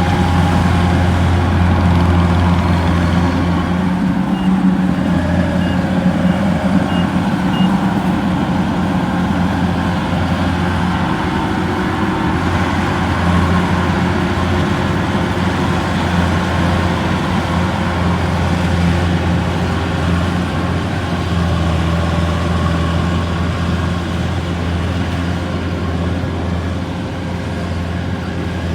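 Kubota rice-harvesting machine's diesel engine running steadily under load as it cuts rice, with a constant low hum and mechanical clatter. About four seconds in, a string of faint, short high beeps sounds for a few seconds.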